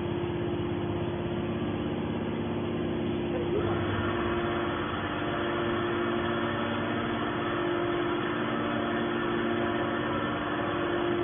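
Petrol engine of a scrap-metal baler running steadily, driving the press's hydraulics. About four seconds in, a broader, harsher noise joins the steady hum and continues.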